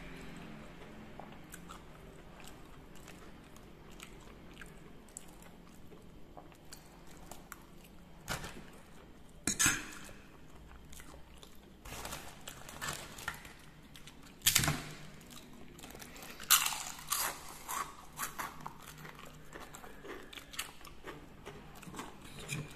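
Close-miked eating: soft chewing of fried instant noodles, then from about eight seconds in a scatter of sharp crunchy bites into seroja, a crisp Sundanese cracker snack.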